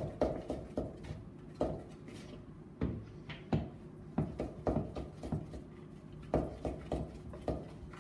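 A metal spoon knocking and scraping against a ceramic mixing bowl while icing is stirred, in irregular strokes about two or three a second.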